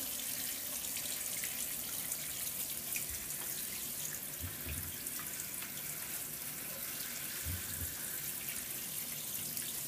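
Tap water running steadily into a tub.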